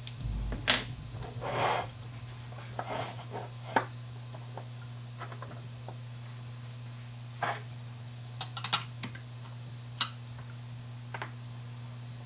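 Scattered clicks, taps and brief rustles of an aluminium curtain track and small plastic parts being handled and set on a wooden table, with a cluster of sharp clicks about two thirds of the way through. A steady low hum runs underneath.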